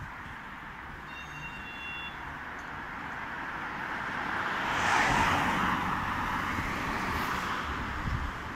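Road traffic: a car passing along the street, its tyre and engine noise swelling to a peak about halfway through and then fading away.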